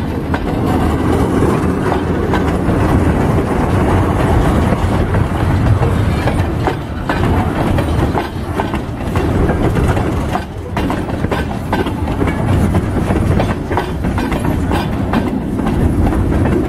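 Freight cars of a passing train rolling by: empty flatcars, then tank cars and a covered hopper, with a steady low rumble and the wheels clacking irregularly over the rails.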